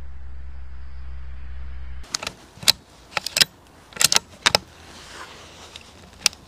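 A steady low hum for about two seconds, then a run of sharp metallic clicks and rattles from handling the bolt-action rifle, ending with one last click near the end.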